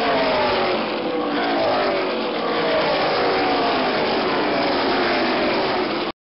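NASCAR Cup stock cars' V8 engines racing past at speed, several engines overlapping, their pitch falling steadily as they go by. The sound cuts off suddenly near the end.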